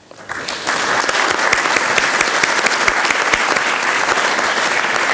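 Audience applauding: many hands clapping together, swelling over the first second, holding steady, and dying away near the end.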